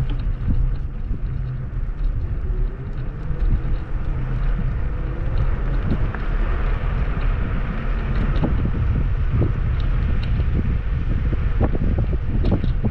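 Wind buffeting the microphone on a moving electric scooter: a steady low rumble, broken by scattered knocks and rattles as the scooter runs over a rough path.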